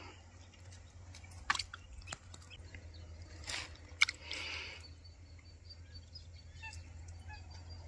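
Faint outdoor background with a handful of short rustles and clicks, the sharpest click about four seconds in.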